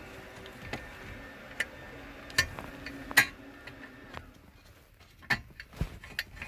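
Irregularly spaced clicks and knocks of hand tools working on car fasteners, over a faint steady hum that fades out about four seconds in.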